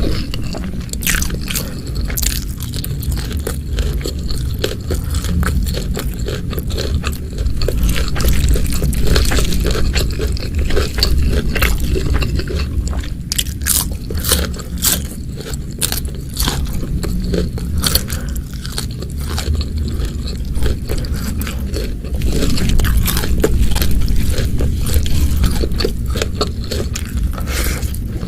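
Close-miked chewing and crunching of food, with many short crisp clicks and wet mouth sounds throughout, thicker in places.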